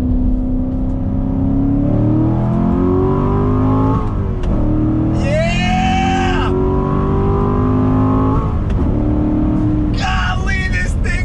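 2019 Corvette Grand Sport's 6.2-litre V8 under hard acceleration, heard from inside the cabin. It climbs in pitch through the gears of its 7-speed manual, with upshifts about four and eight and a half seconds in. A man laughs out loud about five seconds in and again near the end.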